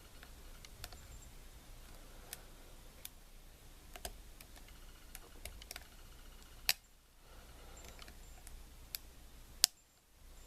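Lock pick working the pin stack of a small Brinks 35mm brass padlock: scattered small metallic clicks, with two sharper, louder clicks about two-thirds of the way in and near the end.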